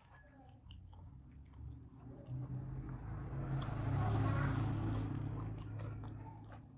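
Close-up chewing and mouth sounds of a person eating. A louder rumbling noise over a low hum swells up a couple of seconds in and fades away near the end.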